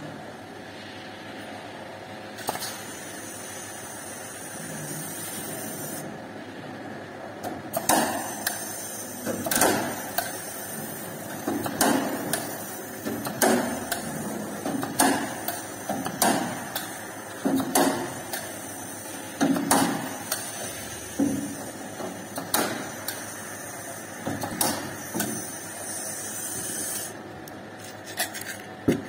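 Metalwork on an air-conditioning unit's sheet-metal housing: a run of about a dozen sharp metallic knocks and clunks, one every second or two, over a steady high hiss.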